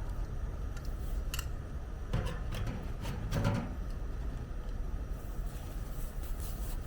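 Metal clinks and knocks from handling and setting up a small sheet-metal camping stove and its stovepipe, a handful of short knocks between about one and four seconds in, over a steady low rumble.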